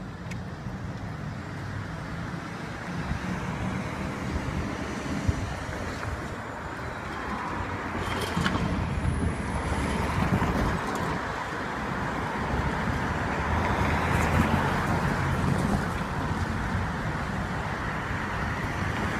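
Road traffic on a city street: cars driving past, a steady rumble of tyres and engines that grows louder in the second half.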